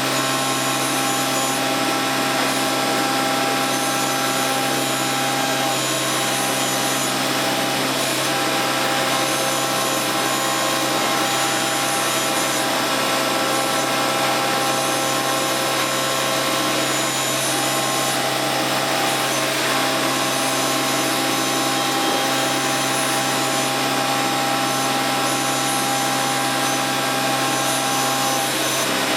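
Milling machine running steadily, its cutter machining a workpiece: an even grinding hiss with several steady machine tones.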